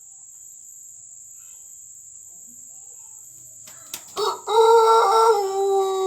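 Pelung rooster crowing: after a few sharp clicks, a short first note about four seconds in, then a long, drawn-out crow that is held and sinks slightly in pitch, still going at the end.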